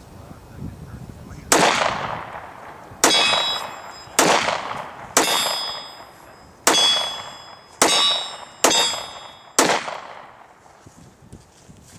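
Hi-Point 9mm pistol firing Blazer 9mm rounds: eight shots at uneven intervals of about a second, starting about a second and a half in. Each is a sharp crack with a short fading tail, and most are followed by a brief high ringing.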